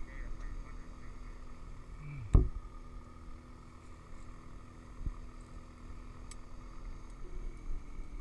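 A faint steady background with one sharp knock about two seconds in and a lighter click around five seconds in.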